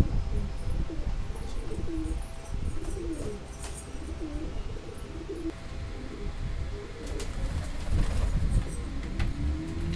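Domestic pigeons cooing: several low, rising-and-falling coos in the first half, over a low rumble, with a few sharp clicks near the end.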